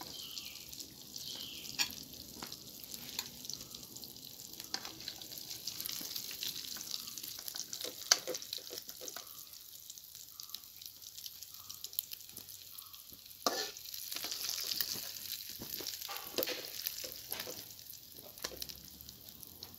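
Fried tilapia pieces sizzling in hot oil in a steel kadai on a gas stove. A steel spatula scrapes and clinks against the pan again and again as the fish is lifted out.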